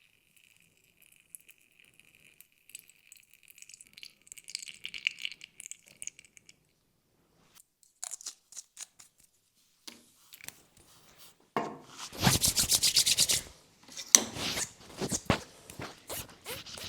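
Hands rubbing and scratching through hair on a scalp close to the microphone, with crackles and taps. A loud, fast run of rubbing strokes comes about twelve seconds in. A faint steady high whine sits under the first six seconds.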